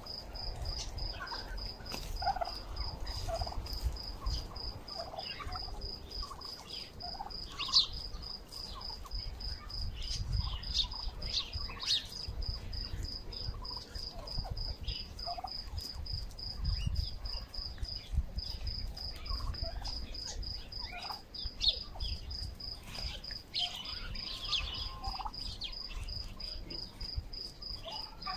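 A flock of domestic turkeys foraging and giving many short, scattered calls and peeps. Behind them an insect trills steadily at a high pitch, breaking off briefly about two-thirds of the way through.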